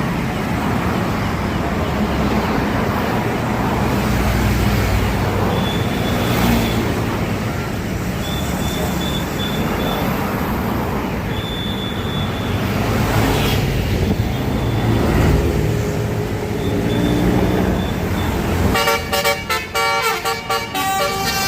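Traffic noise with a heavy engine running, then, near the end, a bus's basuri multi-tone telolet air horn starts playing a fast, choppy melody of many notes.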